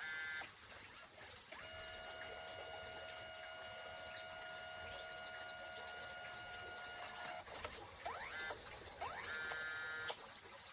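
Built-in dye-sublimation printer of a Kodak Mini Shot 2 Era instant camera running a print. Its feed motor spins up with short rising whirs, then gives a steady whine for about six seconds, and whirs up again near the end.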